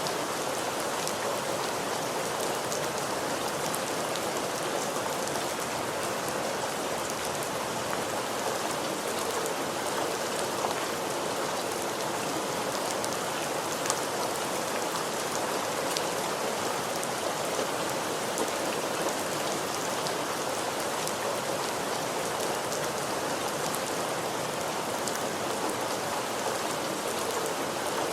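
Steady rain falling on a hard surface, an even hiss dense with individual drop splats and an occasional louder drip.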